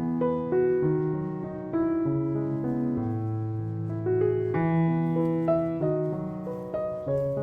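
Background music: a gentle keyboard piece of held piano-like notes and chords, changing every half second or so.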